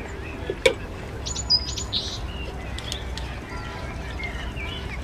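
Birds chirping over a steady low outdoor rumble, with a burst of quick high call notes about a second and a half in. A single sharp click comes just under a second in.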